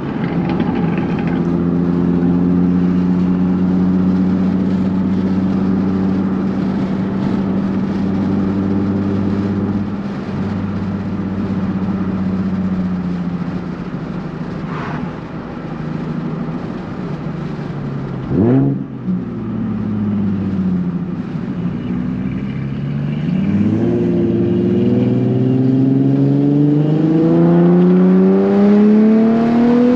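Car engine and exhaust running at a steady pitch for several seconds, then easing off. A little past halfway there is one quick rise and fall in pitch. In the last several seconds the engine accelerates, its pitch climbing steadily.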